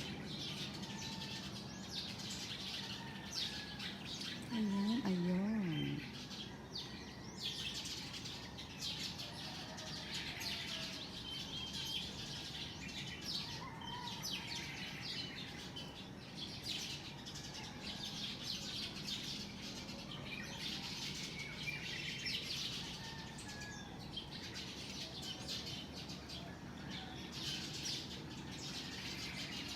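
Many small birds chirping and tweeting, short high calls overlapping throughout. About four and a half seconds in, a louder, lower wavering call rises and falls twice over about a second and a half.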